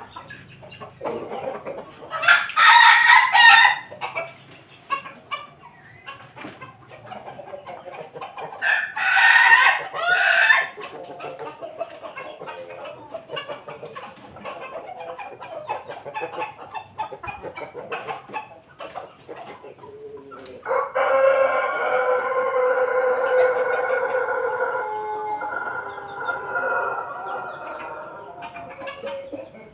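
Chickens clucking, with two short, loud rooster crows about two and nine seconds in. About twenty seconds in, a rooster gives one long, drawn-out crow lasting about eight seconds that fades towards its end.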